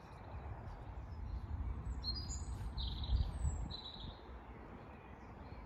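A small bird chirping a few short, high notes about two to four seconds in, over a steady low rumble of wind on the microphone.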